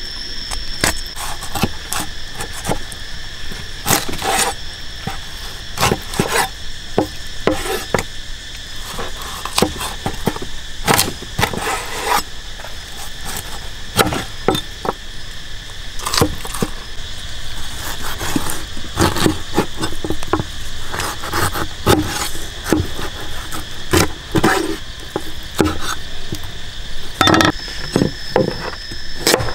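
A heavy cleaver chopping raw pork ribs on a wooden cutting board, irregular knocks a second or two apart, over steady high chirring of insects.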